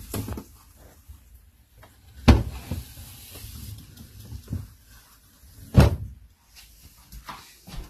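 Handling knocks and thumps, the two loudest about two and a half and six seconds in, with a faint hiss for a second or two after the first.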